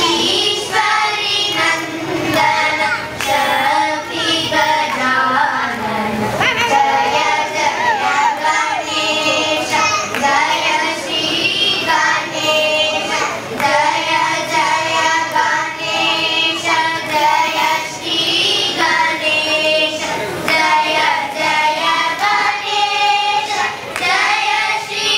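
A group of young girls singing a song together into microphones, their voices blended in a single melodic line.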